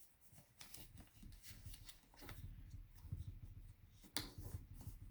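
Faint rustling and crinkling of a sheet of paper being folded edge to edge and creased, with a sharper crackle about four seconds in.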